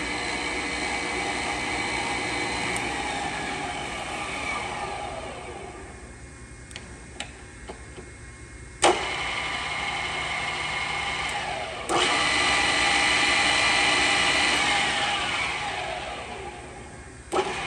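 Arboga Maskiner GM3580 drill press's two-speed motor and spindle gearing running, then switched off and winding down with a falling whine, since it has no brake. It restarts with a clunk about nine seconds in, steps up louder with another clunk near twelve seconds, and winds down with a falling whine again near the end.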